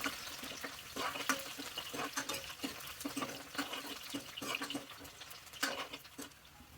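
Faint, irregular small clicks and light liquid sounds from a pot of jackfruit curry cooking on the stove, fading toward the end.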